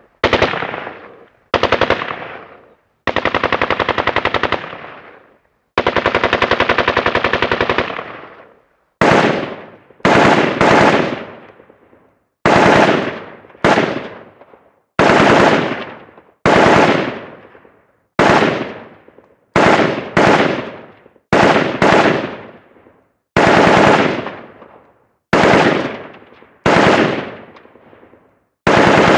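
Gunfire sound effects: a couple of single shots, then two sustained automatic bursts of about two seconds each, then a string of single shots about one a second, each with a fading tail.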